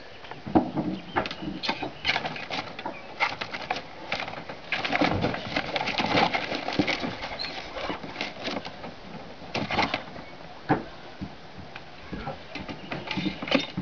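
Plastic pet carrier being handled: its wire door rattles and clicks, and bedding rustles inside as a guinea pig is reached for and lifted out. Irregular clicks and knocks throughout, busiest a few seconds in.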